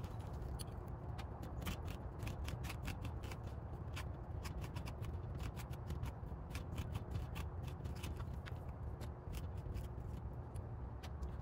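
Metal spoon scraping seeds and stringy pulp out of a halved raw spaghetti squash: a continuous run of quick, irregular scratchy scrapes and clicks.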